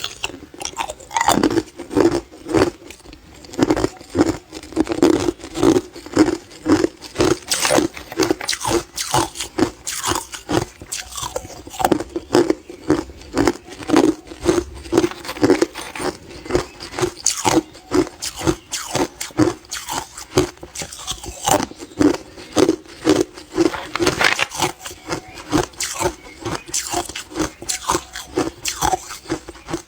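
Hard clear ice being bitten and chewed close to the microphone: a rapid, steady run of sharp crunches, about two to three a second.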